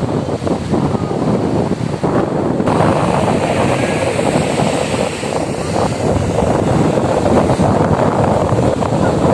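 Strong wind blowing across the microphone, mixed with the rush of sea surf. The noise turns brighter and fuller about three seconds in.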